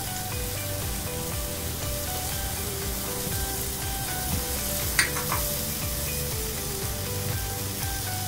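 Oil sizzling steadily in a cast iron skillet as chopped garlic and ginger purée fry in it, with one sharp tap about five seconds in. Quiet background music plays underneath.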